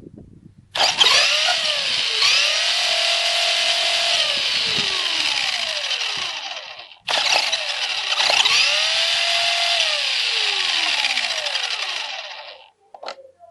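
RC car's electric motor and drivetrain running flat out on a pack of 128 9-volt batteries in parallel, a loud whine in two runs of about six seconds each. Each run starts abruptly, its pitch climbing at once and then sinking slowly before it cuts off.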